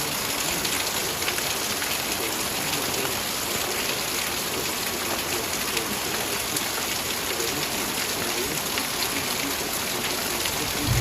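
Heavy rain pouring down: a steady, dense hiss of rain hitting surfaces.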